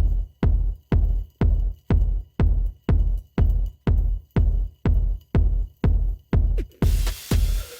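Electronic background music with a steady thumping kick drum at about two beats a second. A hissing cymbal swell comes in near the end.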